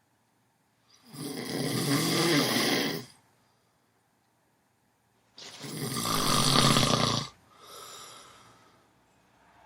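Snoring: two long, loud snores about four seconds apart, the second followed by a softer breath out.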